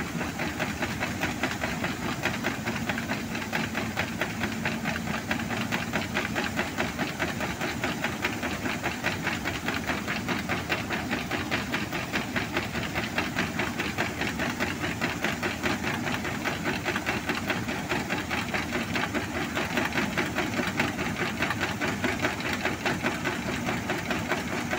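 Combine harvester running under load while its unloading auger pours winter barley into a trailer: a steady, dense machine noise with a fast even pulsing, ending abruptly.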